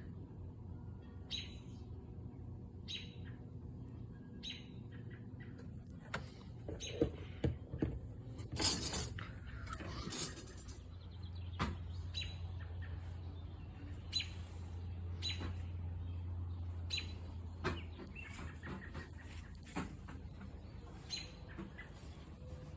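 Small birds chirping in short, scattered calls, over a low steady hum, with a brief rustle about nine seconds in.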